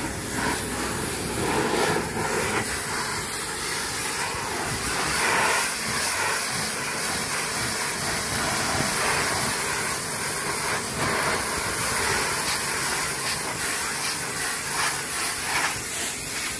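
Pressure washer jet spraying the hull of a hauled-out sailboat: a steady hiss of water.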